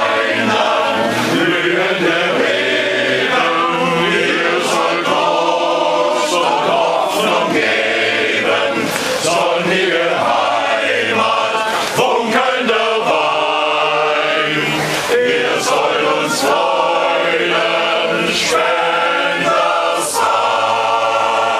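Male choir singing a cappella, many men's voices sustaining a song together without instruments.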